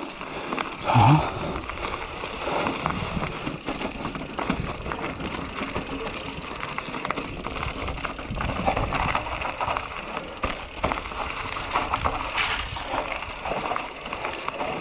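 Enduro mountain bike rolling down a rocky, leaf-strewn singletrack: tyres crunching over loose stones and dry leaves, with a continuous run of small knocks and rattles from the bike.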